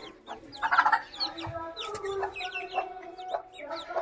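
Newly hatched chicks peeping in quick, high, falling chirps, with a mother hen clucking low beneath them. A louder call comes about a second in.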